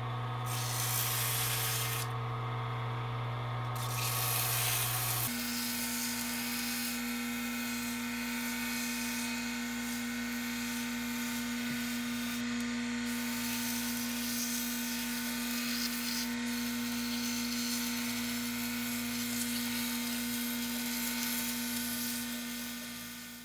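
Mini wood lathe motor running steadily with a hiss as sandpaper is held against the spinning pen blanks. About five seconds in, the motor's hum shifts to a higher pitch. It fades out as the lathe is switched off near the end.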